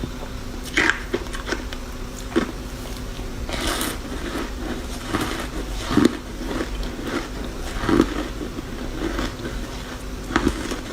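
Pieces of ice coated in matcha powder being bitten and crunched close to the microphone: irregular crunches, the loudest about six and eight seconds in.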